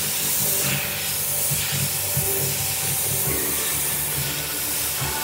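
Airbrush hissing as it sprays paint, the hiss swelling and easing, over background music with a steady bass beat.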